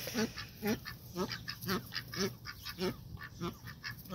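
Domestic duck giving a steady run of short quacks, about two a second: happy duck sounds.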